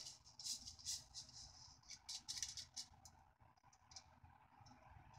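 Uncooked rice grains poured from a mesh strainer onto the layers in a clay donabe pot: a faint patter of small clicks and rattles, densest over the first three seconds, then thinning to a few scattered ticks.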